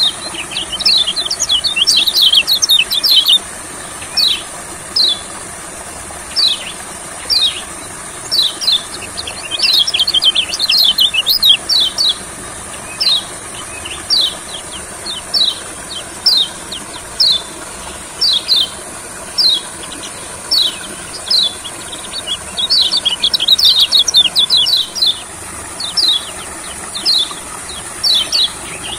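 Kecial kuning (yellow white-eye) calling in full song: a string of sharp, high, down-slurred chirps about one a second, broken three times by bursts of rapid twittering.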